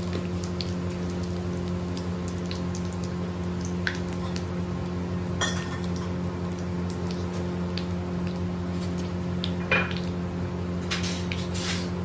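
Whole spices, cumin seeds and asafoetida sizzling in hot oil in a pan for a tadka (tempering), with a metal spoon clinking against the pan a few times while stirring, over a steady low hum.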